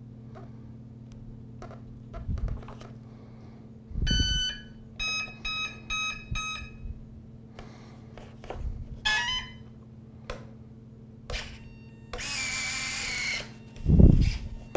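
Electronic startup beeps from the electric jet's electronics powering up: a short tone, then a quick run of pitched beeps and a rising chirp. About twelve seconds in, E-flite electric retracts whir for just over a second as the gear switch is flipped and the landing gear cycles. Light clicks of handling throughout, and a low thump near the end.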